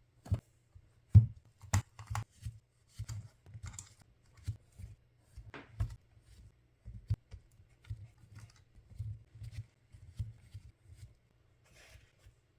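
Batteries being handled and slotted into a zip-up battery organizer: a string of irregular small clicks and knocks, a few sharper ones in the first two seconds.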